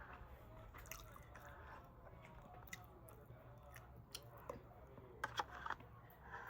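A person chewing food with soft, wet mouth sounds and scattered small clicks, a few sharper ones a little past the middle.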